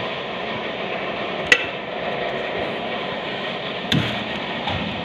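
Manual transmission parts being handled and set down on a workbench: one sharp metal clink about a second and a half in, then a heavier knock near the end and a softer one just after, over a steady background hum.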